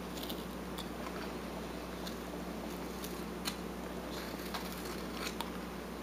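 Carving knife paring wood from a hand-held block, a scattering of short, faint crisp cuts, over a steady low hum.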